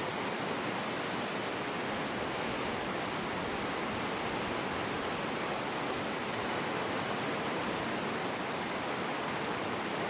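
White-water river rapids pouring over rocks through a narrow rock gorge: a steady, unbroken rush of water.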